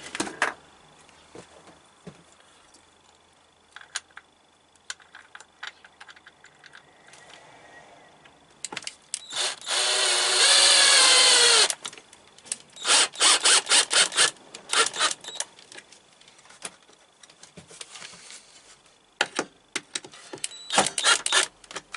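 Electric drill driving screws: one continuous run about two-thirds of the way in, its whine falling in pitch as the screw bites, then several groups of short bursts near the end.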